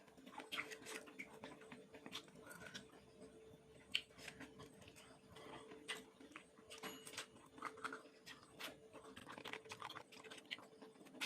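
Faint, close-up chewing of chewy seblak, with irregular wet clicks and mouth smacks.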